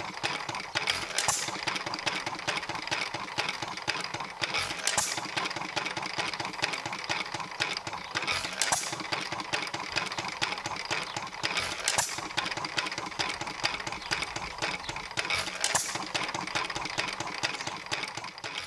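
A 1 1/2 HP Worthington single-cylinder hit-and-miss engine running on its flywheels with a steady mechanical clatter. A sharp bang comes about every three and a half seconds: the engine firing, then coasting between firings as the hit-and-miss governor holds its speed.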